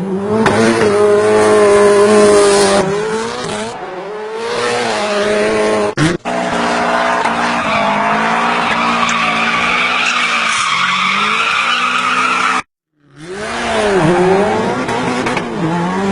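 Dubbed-in car sound effects: an engine revving up and down, with tire squeal and skidding. The sound cuts out abruptly for a moment about three-quarters of the way through, then the revving resumes.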